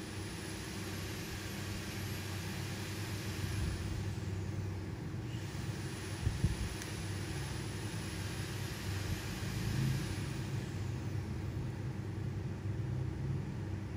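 Steady background hum with a high hiss over it, and a single faint knock about six and a half seconds in.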